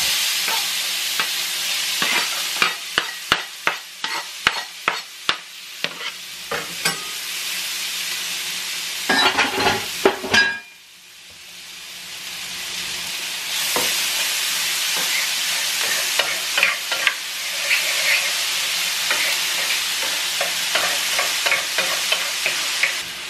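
Chopped onion sizzling in hot oil in a frying pan, with a run of sharp taps about two to seven seconds in. About ten seconds in the sizzle drops away briefly and then builds again, with a wooden spoon clicking against the pan as the onion is stirred.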